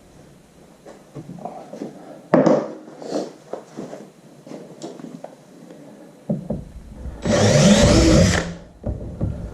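Tools and parts being handled with light knocks and clatter, then a power drill runs in one short burst of about a second and a half, about seven seconds in.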